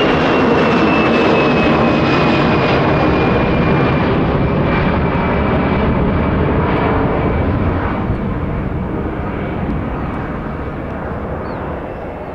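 Airbus A320-200 twin-engine jet climbing out after takeoff: loud jet-engine noise with a high whine that slowly falls in pitch, fading over the last few seconds as the airliner draws away.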